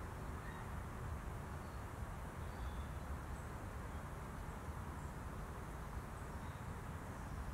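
Steady outdoor woodland background noise with a low rumble, and a few faint, brief high chirps scattered through it.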